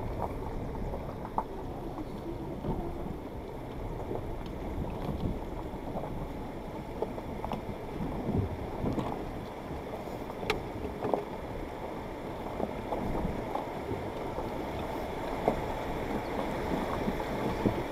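Suzuki Jimny rolling slowly over a rocky riverbed, heard through a windscreen dashcam: a steady low rumble of engine and tyres, broken by scattered knocks and clicks from stones and the suspension.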